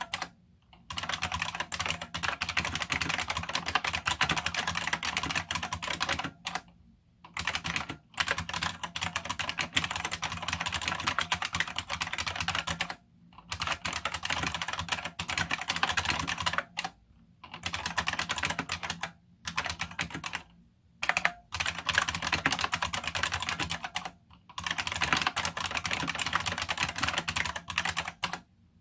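Fast continuous typing on a Unicomp buckling-spring keyboard in the IBM Model M style, each key giving a loud, sharp click-clack as its spring buckles. The typing comes in long runs broken by brief pauses.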